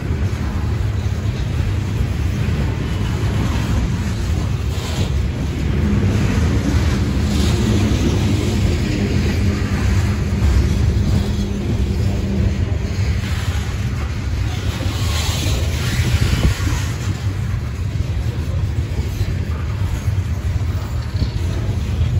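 Norfolk Southern freight train's hopper and gondola cars rolling past close by: a steady low rumble of steel wheels on the rails, with a few brief higher hissing stretches.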